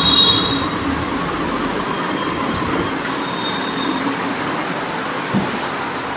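Whiteboard eraser rubbing marker off a whiteboard: a steady scrubbing hiss, with brief high squeaks at the start and again about halfway through.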